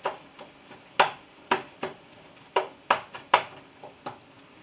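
Cookware knocking on the stovetop during frying: about eight sharp, irregular clacks, like a spatula hitting a frying pan.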